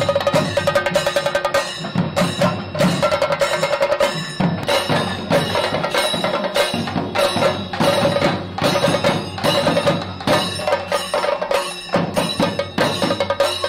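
Kerala chenda drums beaten with sticks in a fast, dense rhythm, with a ringing metallic tone keeping time alongside. The playing eases for a moment about four seconds in, then carries on.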